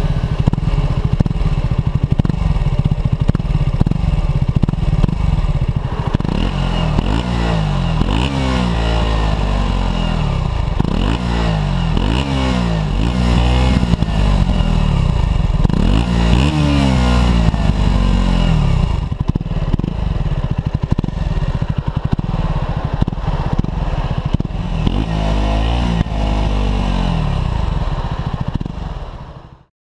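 2012 KTM 125 Duke's single-cylinder engine running through its stock exhaust, heard onboard while riding. Through the middle it revs up again and again as the rider accelerates through the gears, dropping back at each shift; later it runs steadier, then cuts off suddenly just before the end.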